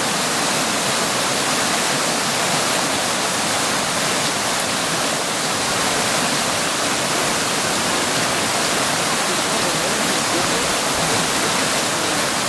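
Steady rush of fast-flowing creek water.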